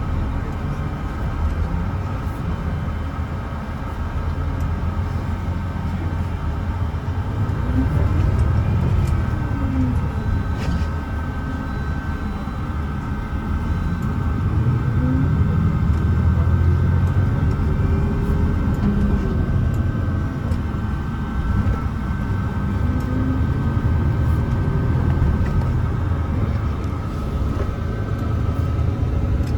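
Cabin of a Mercedes-Benz O307 bus under way: the diesel engine rises and falls in pitch several times as the bus accelerates and changes gear, over a steady low rumble, with a thin high whine held throughout.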